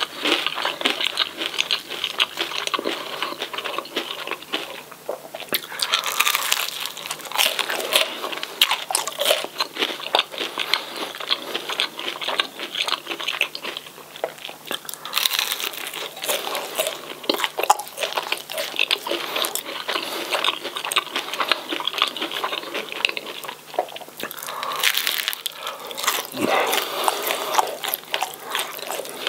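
Close-miked crunching and chewing of crispy fried fish and chips: a steady run of crisp bites with crackly chewing between them.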